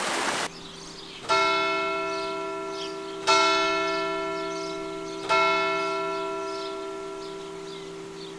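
Church bell tolling: three slow strokes about two seconds apart, each ringing on and slowly fading, over the lingering hum of an earlier stroke. A rushing mountain stream is heard for the first half-second before it cuts off.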